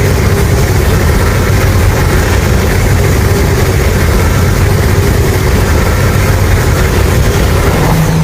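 A loud, steady, deep rumbling sound effect, a continuous wash of noise heaviest in the low end with no pauses or strokes.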